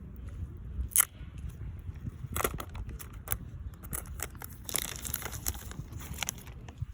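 iPhone 12 Pro box packaging being handled and opened: paper and plastic crinkling and tearing, with several sharp clicks. The loudest click comes about a second in, and there is a denser stretch of crackling a little past halfway.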